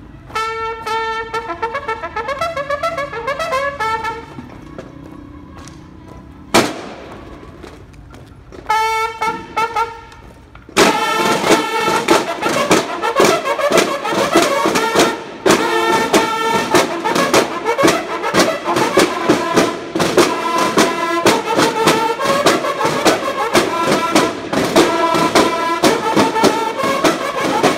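Banda de guerra bugles and drums playing a march: a short bugle phrase, a lull broken by a single sharp knock, a second brief bugle phrase, then from about eleven seconds in bugles and drums playing together steadily.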